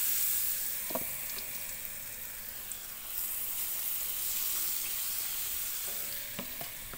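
Baking-powder-coated potato strips deep-frying in hot oil in a wok, a steady sizzle. There is a short metal clink about a second in and a few light taps near the end.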